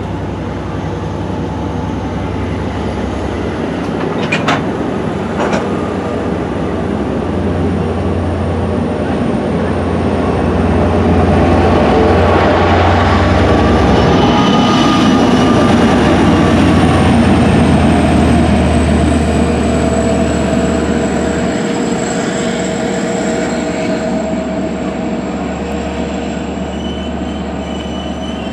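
Long Island Rail Road bilevel C3 passenger coaches rolling slowly along the platform, their wheels squealing with thin high steady tones over a low drone. Two sharp clicks come about four and five and a half seconds in, and the sound is loudest midway.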